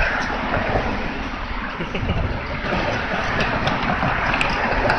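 Steady noise of car traffic on the bridge roadway beside the walkway, with wind gusting on the microphone.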